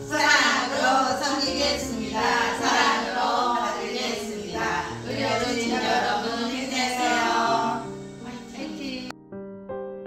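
A group of women singing a song together in unison over musical accompaniment. About nine seconds in it cuts abruptly to soft piano music.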